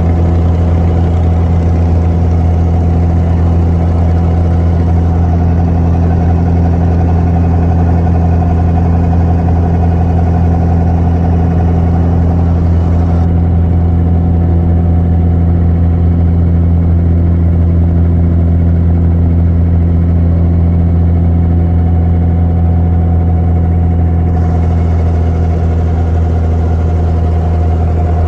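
Steady drone of an abra's inboard diesel engine running at an even speed, heard close up from on board the boat.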